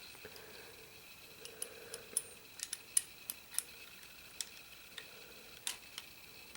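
Small sharp metal clicks and taps, about a dozen, scattered over a few seconds, as the rammer is worked back onto the loading lever of a Ruger Old Army percussion revolver.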